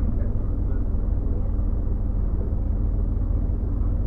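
Scania OmniLink single-deck bus's rear-mounted diesel engine running with a steady low drone, heard from inside the passenger saloon.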